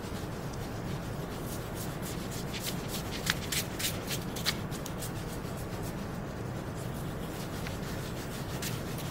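Stiff tarlatan cloth, balled in a gloved hand, rubbing in circles over an inked zinc intaglio plate: a soft, scratchy scrubbing with small crackles, thickest in the first half. This is the wipe that clears excess ink from the plate's surface. A steady low hum runs underneath.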